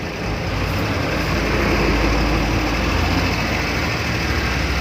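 Steady vehicle engine rumble with a hiss of road or running noise, heard from inside the passenger vehicle.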